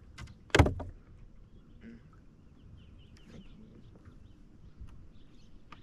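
Quiet open-air ambience with a few faint bird chirps, broken by one short, sharp thump about half a second in.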